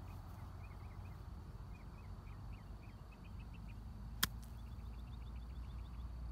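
A golf iron strikes the ball once with a single sharp click, about four seconds in, on a pitch shot played off grass. Small birds chirp in short repeated notes in the background.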